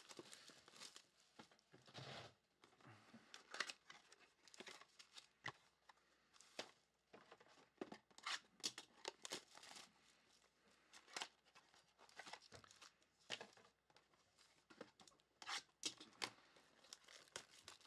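Plastic shrink-wrap being torn and crinkled off a 2020-21 Clearly Donruss trading-card box: faint, scattered crackles and rustles.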